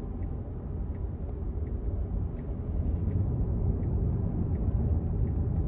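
Tyre and road rumble inside a Tesla's cabin at freeway speed as the electric car speeds up to merge, growing slightly louder. Faint regular ticks come about every 0.7 s, the turn-signal indicator clicking for the merge.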